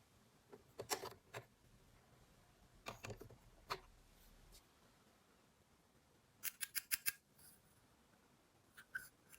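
Sharp, small clicks and snips from handling miniature plastic toy pieces and their packaging, coming in four short clusters with the quickest run of clicks near the middle.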